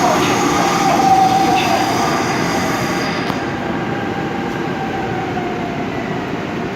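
Seoul Subway Line 5 train running on the track: a steady rumble of wheels and running gear with a thin, high whine over it. The sound gradually grows quieter.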